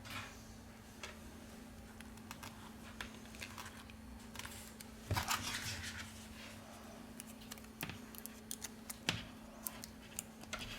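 Scattered light taps and clicks of hands working on the iPad at the repair bench, over a steady low hum, with a louder scraping rustle about five seconds in.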